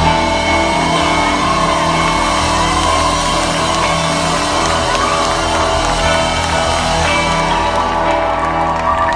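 A live rock band with electric guitar holding a long chord to end a song, while the crowd shouts and whoops over it.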